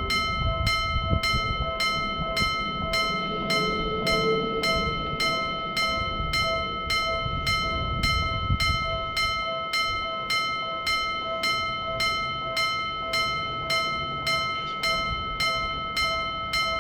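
Japanese railroad crossing warning bell ringing in a steady, even rhythm, while a train rumbles past and fades away about halfway through.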